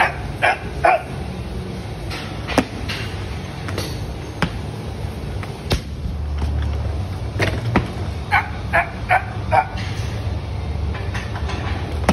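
A dog barking: two short barks near the start and four quick barks a little past the middle, over a steady low hum, with a few isolated sharp knocks.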